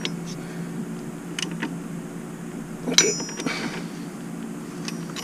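Metal tools clicking and clinking as a socket wrench is worked on the timing-belt pulleys of a Volvo Penta TMD22 diesel, with one loud ringing metallic clank about three seconds in. A steady low hum runs underneath.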